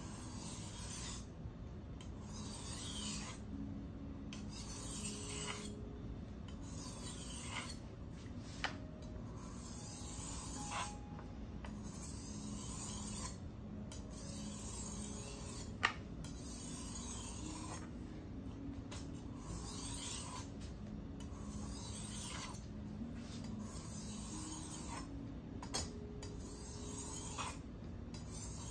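Steel chef's knife blade being stroked back and forth across a wet whetstone, a gritty scraping rasp with each pass, roughly one stroke every second or so. A couple of brief sharp clicks, the louder one a little past the middle.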